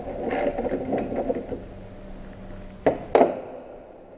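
Hand ratchet wrench clicking quickly as it turns out a 10 mm bolt, for about the first second and a half. Two sharp clacks follow close together about three seconds in.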